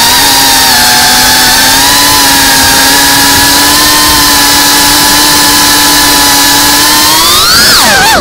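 FPV racing quadcopter's motors and propellers whining steadily at high throttle, very loud and close as heard from the onboard camera. Near the end the whine rises sharply in pitch as the throttle is punched, then drops away.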